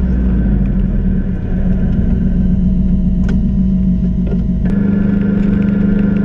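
Air-cooled VW Beetle flat-four engine running, heard inside the cabin with road noise. The sound changes abruptly about four and a half seconds in.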